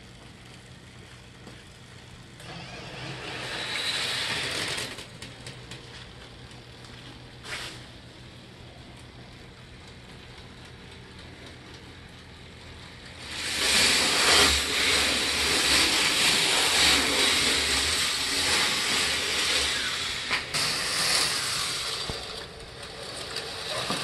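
Model wooden roller coaster running: the lift motor hums steadily, and about thirteen seconds in the train runs the course, a loud rush of wheel noise on the track lasting about ten seconds.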